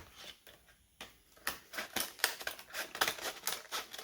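Scissors cutting through stiff plastic packaging: a quick, irregular run of sharp snips and crackles, several a second.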